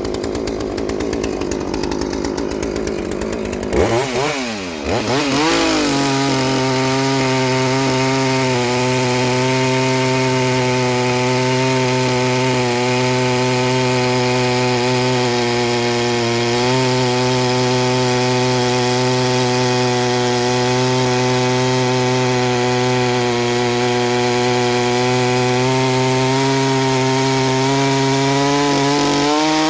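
Chainsaw cutting green gum hardwood. Its engine revs up about four seconds in, then runs at a steady high pitch under load for the rest of the time, with only slight dips.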